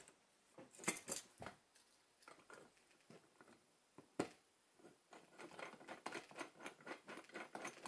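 Steel action-wrench block and bolts handled on a rifle receiver: a few faint clicks as the top block is set in place, a sharper click a little past four seconds, then a run of quick light ticks from about five seconds in as the clamping bolts are turned down by hand.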